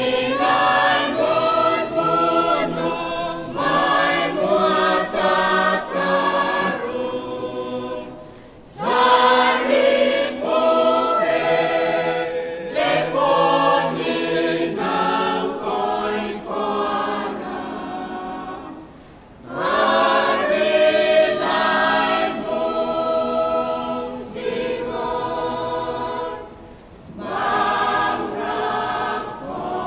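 A church choir of women and men singing a hymn in Roviana in several-part harmony. The phrases are broken by short pauses three times.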